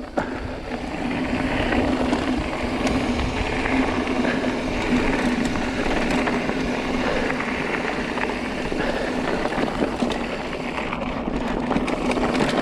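Mountain bike rolling fast down a rough dirt and gravel trail: continuous tyre noise and rattling over the rough ground, with wind on the camera microphone and a steady low hum underneath.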